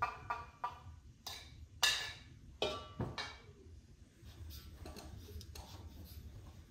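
A quick run of sharp knocks and clinks, several of them ringing briefly like struck metal or crockery, mostly in the first three seconds, followed by a few softer taps.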